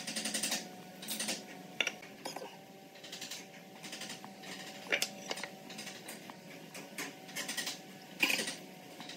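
Pencil scratching lines on pine boards along a steel ruler, in short strokes of about half a second each, with a few sharp knocks as the ruler and boards are shifted and set down.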